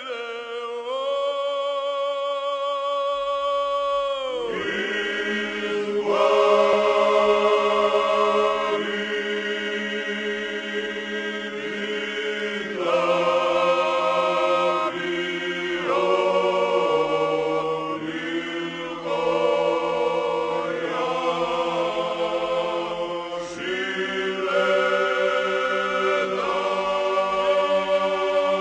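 A cappella choir singing a slow Georgian polyphonic song in long held chords over a steady low drone. A few voices sing alone at first, and the full choir joins about four seconds in, shifting chords every few seconds.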